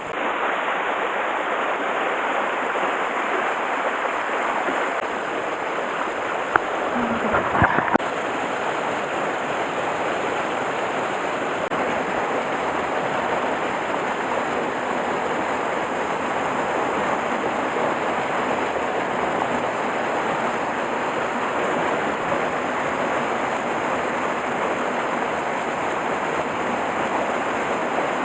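Mountain stream water rushing steadily over rocks. A few short knocks about seven seconds in.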